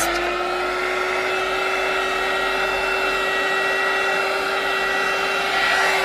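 A heat gun switched on and running steadily: a rush of blown air with a steady motor tone, passed over wet epoxy resin to bring out the silicone-oil cells.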